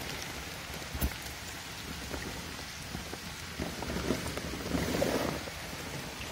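A mass of live juvenile Asian swamp eels squirming in water inside a plastic bag: a steady wet crackle and rustle like rain, with a sharp tap about a second in and busier splashing in the second half.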